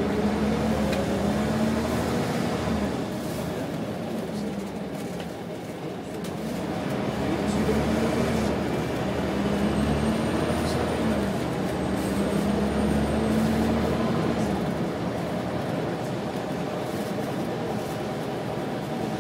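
Diesel engine of a Wright Solar-bodied Scania single-deck bus heard from inside the saloon while the bus is under way, its note climbing and then dropping back several times as it moves up through the gears, over a steady rumble of road noise.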